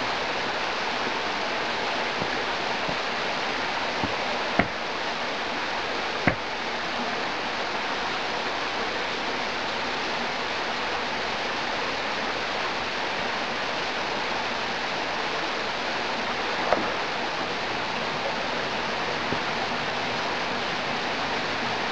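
Steady rush of water flowing over rocks, with a few brief sharp knocks about a third of the way in and again later.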